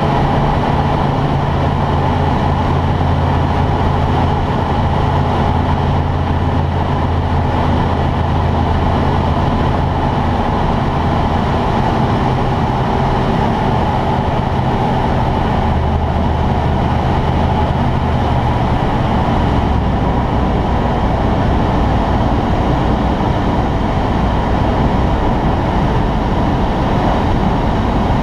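Cockpit noise of a T-10M light aircraft on final approach: a steady rush of air with a low drone that drops in pitch in a few steps as the plane descends toward the grass.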